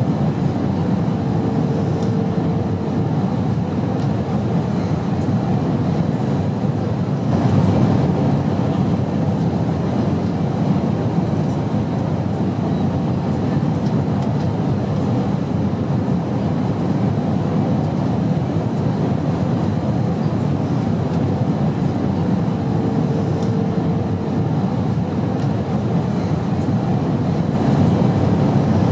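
Airplane in flight giving a steady low rumble of engine and airflow noise, with a faint short hum coming through twice.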